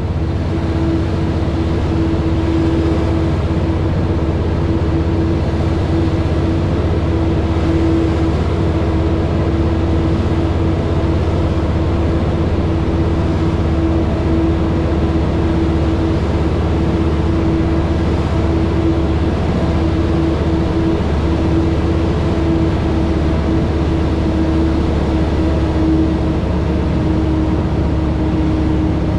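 Diesel engine of a Western Star 4900SF heavy-haul tractor running at a steady, low speed: a constant deep drone with a steady hum over it, no revving. Heard close up from outside the cab beside the exhaust stack.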